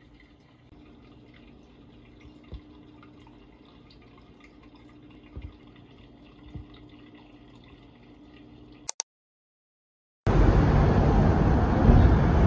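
Shrimp aquarium's air-driven sponge filter bubbling and trickling faintly over a low steady hum, with a few soft thuds. About ten seconds in, after a brief gap, loud steady street noise takes over.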